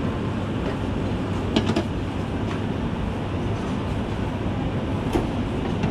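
Steady din of a cafeteria serving line, with the kitchen's ventilation running. A few short clinks of utensils come about one and a half seconds in and again near the end.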